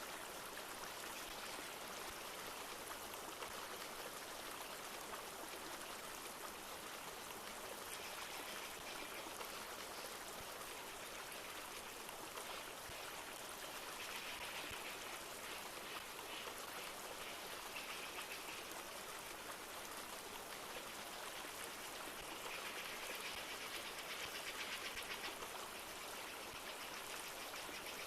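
A river flowing steadily, with light rain falling. Three times, for a few seconds each, a higher-pitched rushing sound rises and falls over it.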